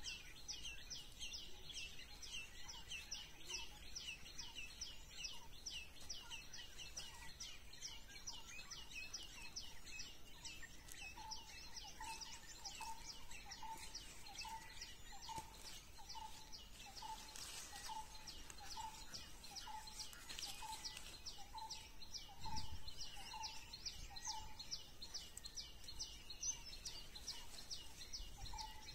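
Birds calling outdoors: a fast run of high chirps, several a second, goes on throughout. About a third of the way in, a lower note starts repeating about twice a second and keeps going for some ten seconds. A single soft thump comes about three quarters of the way through.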